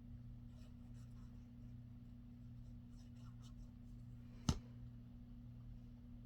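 Faint rubbing and rustling of paper as a cut-out sticker is pressed and glued into a journal page, over a steady low hum, with one sharp tap about four and a half seconds in.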